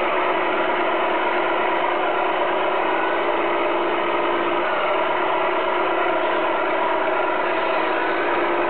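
Steady engine sound from a 1/14 Tamiya Scania R620 radio-controlled truck, idling with small shifts in pitch. It sounds thin, with no deep bass.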